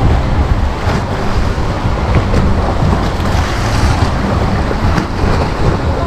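Small sea waves breaking and washing up onto a sandy shore in a steady churning wash, with wind buffeting the microphone as a low rumble underneath.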